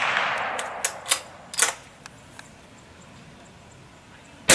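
The echo of a .22 Magnum bolt-action rifle shot fades away, followed by several sharp metallic clicks as the rifle is worked and readied. The next shot cracks out right at the end.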